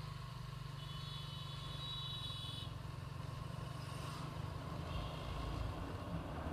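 Motorcycle engine running steadily under way, heard from the bike itself with road and wind noise. A high steady tone sounds for about two seconds starting about a second in, and again faintly near the end.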